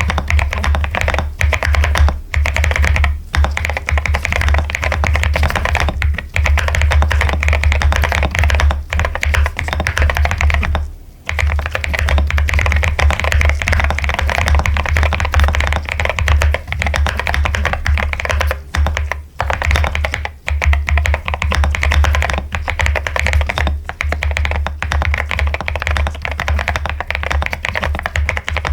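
Fast, continuous typing on a mechanical keyboard: dense clicking keystrokes with a brief pause about eleven seconds in, over a steady low hum.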